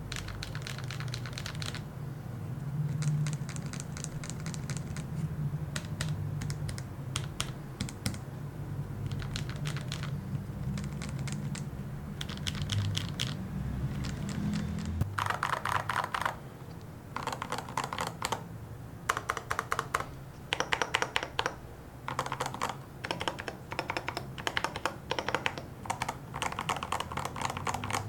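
Lubed tactile mechanical keyboard switches, Gazzew Boba U4Ts and Drop Holy Panda Xs, typed on in runs of rapid keystrokes. The switches are bare for the first half, under a low steady hum. About fifteen seconds in, MT3 keycaps are fitted and the keystrokes become fuller and louder clacks.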